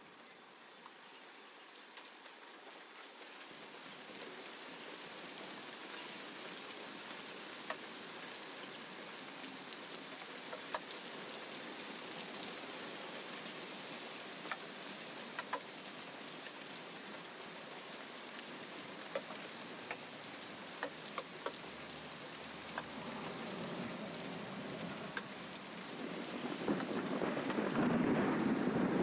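Dried red chillies frying in oil in a steel pan: a steady sizzle with scattered pops and crackles. Near the end, garlic cloves go into the hot oil and the sizzle grows much louder.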